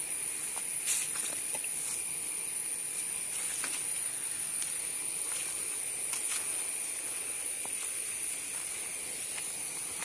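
Insects trilling steadily: a continuous high-pitched drone with a second, lower steady tone beneath it, over a faint hiss. Scattered light clicks and snaps run through it.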